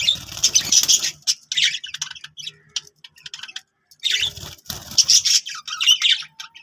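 Budgerigar chattering and chirping in quick, high, irregular bursts, with louder, harsher spells at the start and about four seconds in.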